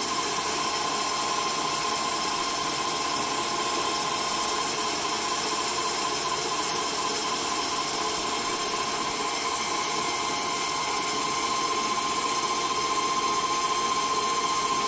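Small CNC metal lathe running a turning cycle: the spindle spins a shaft in a four-jaw chuck while the cutter takes a pass along it. A steady machine hum with a constant whine, a little louder from about ten seconds in.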